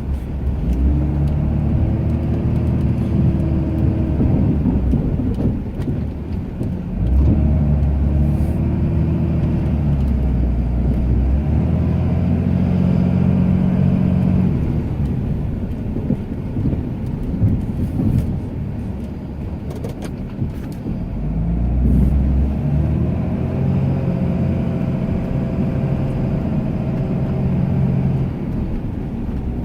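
Ram 2500 pickup engine running under load while plowing snow, its revs rising and falling several times as the truck pushes and backs up.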